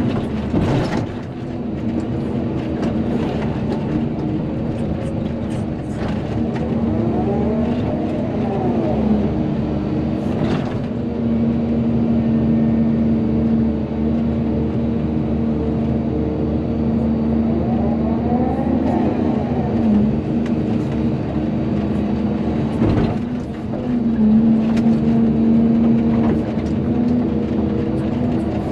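Volvo EC220DL excavator working, its diesel engine running under load with a steady hum, and a tone that rises and falls twice as the hydraulics work the arm. A few sharp knocks come through, near the start, about a third of the way in and about four-fifths of the way in.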